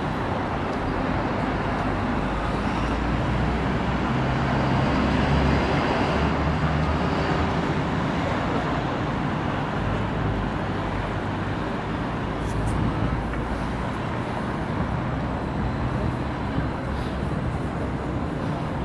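Busy city street ambience: a steady din of traffic with a low rumble.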